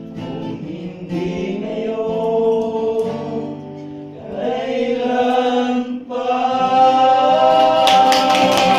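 A group of men singing a gospel song together in long, held notes that glide between pitches. Near the end, a quick run of rhythmic strokes comes in as accompaniment.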